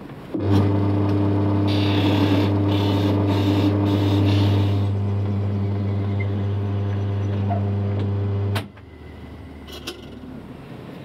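Lathe motor starts and runs with a steady hum while a drill bit in the tailstock bores into the spinning wooden blank. The cutting noise comes in several short bursts over about three seconds as the bit is fed in and backed out. The motor cuts off suddenly near the end.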